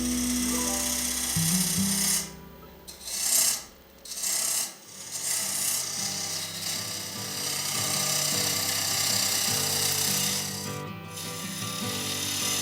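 Background music over the hiss of tool work on a walnut blank spinning on a wood lathe. The hiss breaks off briefly a few times, about two to five seconds in and again near eleven seconds.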